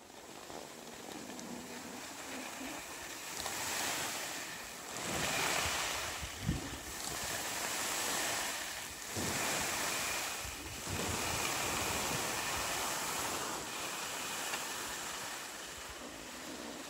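Skis sliding and hissing over snow, with wind rushing on the phone's microphone. The noise swells and fades every couple of seconds.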